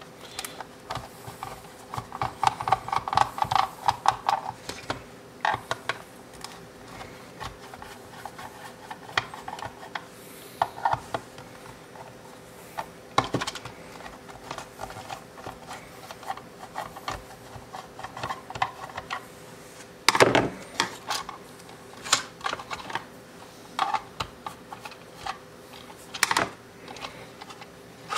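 A screwdriver backing the screws out of a soldering tip polisher's plastic housing: scattered clicks and scrapes of the screws turning, with a rapid run of clicks in the first few seconds. Plastic knocks follow as the casing is handled, the loudest about twenty seconds in.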